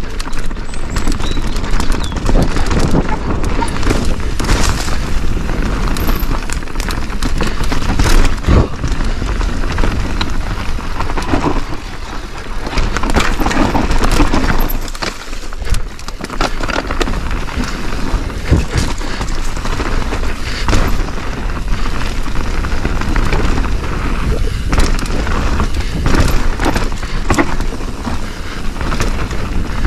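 Mountain bike descending a steep dirt trail: a continuous clatter of tyres, chain and suspension with many sharp knocks over roots and rocks, under loud wind buffeting the microphone.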